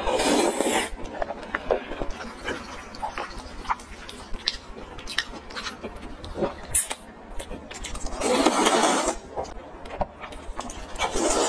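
Close-miked eating sounds: wet chewing with many small mouth clicks, broken by a few noisy slurps of spicy fried noodles, one near the start, one about two-thirds in and one near the end.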